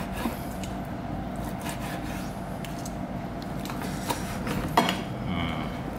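Dishes and utensils being handled: a few soft clicks and knocks over a steady low background hum, with one sharper knock just before five seconds in.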